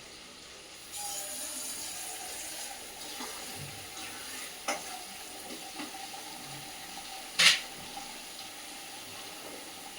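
Fried masala paste sizzling in hot oil in a pan as water is added, the sizzle starting about a second in. There are a few light utensil clinks and one loud sharp metal clank about seven and a half seconds in.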